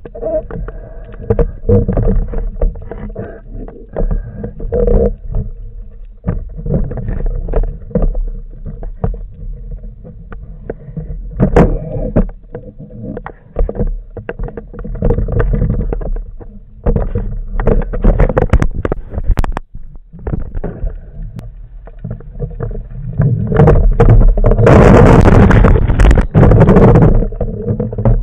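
Underwater sound picked up through a camera housing mounted on a wooden speargun: a low water rumble with scattered clicks and knocks from the gun and the diver's movements. Near the end comes a loud rush of water and bubbles lasting a few seconds.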